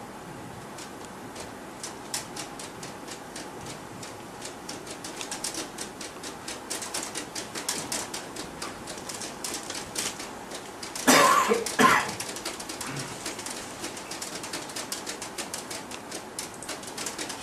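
A long run of quick, dry clicks that grows denser and louder, broken by two loud short bursts of noise about eleven and twelve seconds in.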